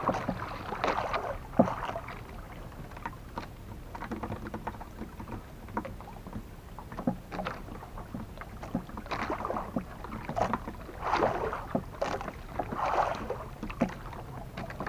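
Water lapping and slapping against a small wooden outrigger boat at sea, with irregular knocks and splashes against the hull.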